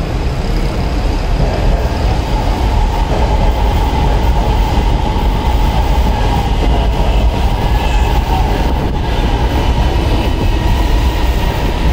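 Orange Line electric metro train running alongside the elevated platform: a steady, loud rumble of the train on its track.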